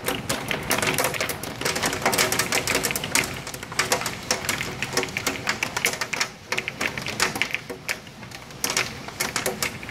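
Hail and rain pelting hard surfaces: a dense, irregular clatter of sharp ticks that eases for a couple of seconds about six seconds in, then picks up again.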